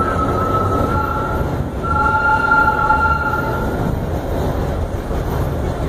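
Vintage R1/9 subway car running, heard from inside the car: a steady rumble of wheels on rail with a high steady wheel squeal that breaks off briefly about a second and a half in, then returns louder with a second lower tone before fading near four seconds.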